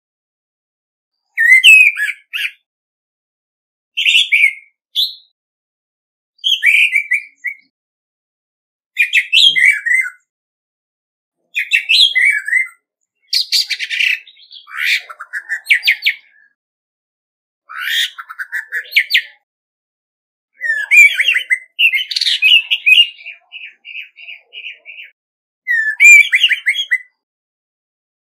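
Male orange-headed thrush singing its contest song: about nine short, varied, whistled phrases, each a second or two long, with clean silent gaps between them. A longer phrase about three-quarters through ends in a steady even trill.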